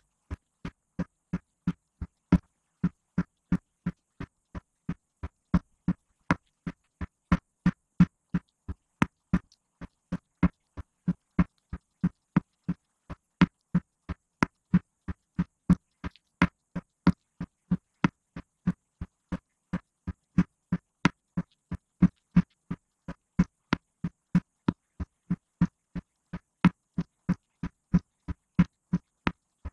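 A steady, evenly spaced electronic beat of short low thumps, each with a click on top, about two and a half to three a second, with dead silence between them.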